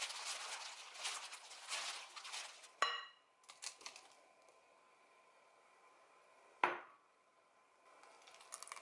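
Plastic-gloved hand squishing strawberries and sugar in a glass bowl, a wet squelching. About three seconds in, glass clinks with a short ring, followed by the soft patter of chopped strawberries dropping into the bowl. A second glass clink follows near seven seconds, and near the end a faint trickle of lemon juice being poured in.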